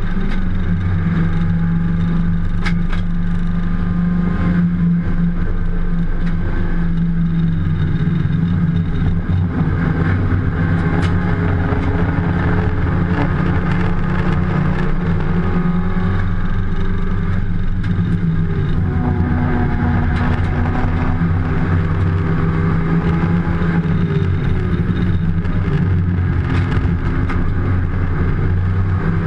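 Mini John Cooper Works race car's turbocharged four-cylinder engine running hard through a flat-out racing lap, heard from inside the stripped cabin, its revs rising and falling through the corners and gear changes.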